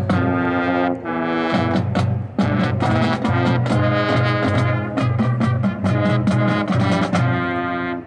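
High school marching band playing: the brass section holds loud chords over regular strikes from the drum line.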